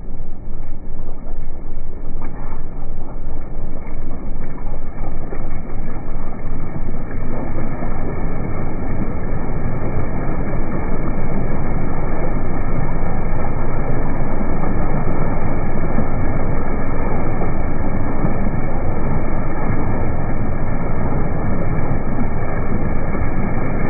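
Off-road utility vehicle driving through muddy puddles, heard from a camera mounted beside its wheel: a loud, muffled, steady rumble of tires, engine and wind on the microphone, pulsing about twice a second for the first ten seconds before evening out.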